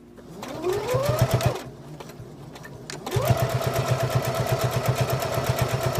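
Electric sewing machine stitching: the motor whines up for a short run of starting stitches about half a second in and stops after about a second, then after a short pause starts again about three seconds in and runs steadily, the needle going in a rapid, even rhythm as it top stitches through the fabric.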